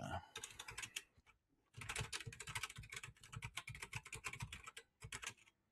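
Typing on a computer keyboard: a short burst of keystrokes, a brief pause, then a long fast run of keystrokes as a long password is entered, stopping shortly before the end.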